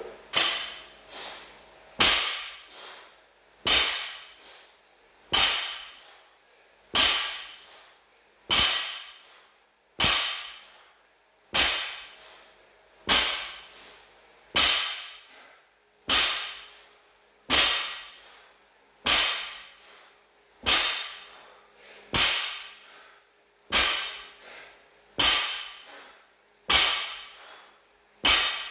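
A 60 kg barbell loaded with rubber bumper plates is set down on a rubber floor mat at each rep of a fast deadlift set. There is a sharp thud about every second and a half, with a fainter knock between each pair.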